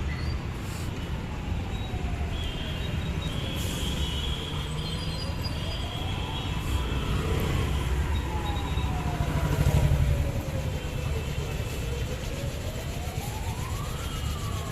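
City road traffic running steadily, with a slow wailing tone that falls and rises in pitch twice over it. The traffic grows louder near the middle.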